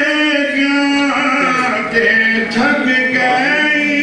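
A man's solo voice chanting Urdu verse in a sung style, without accompaniment, holding long notes that slide between pitches.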